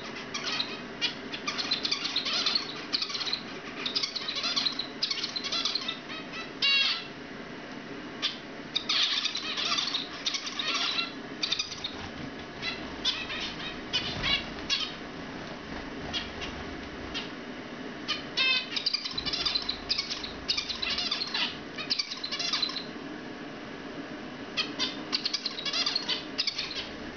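Young zebra finches, about two months old, singing: phrases of quick chirping notes in bursts with short pauses, over a low steady hum.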